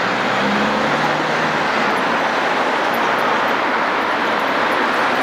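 Steady city traffic noise, an even wash of road sound with a faint low engine hum in the first second.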